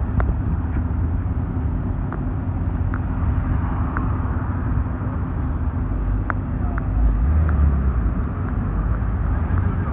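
Aston Martin Vantage's twin-turbo V8 running at low speed as the car crawls past, a steady low rumble that grows louder about seven seconds in as it passes closest.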